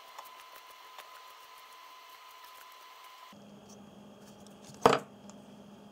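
Quiet handling noise as a thread-ribbed carbon-fibre rod is screwed into a foam float body with long-nose pliers: faint small ticks, then one sharp click near the end.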